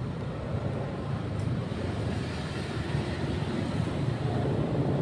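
Motorcycle riding along a road: steady engine and wind noise on the rider's microphone, growing slightly louder toward the end.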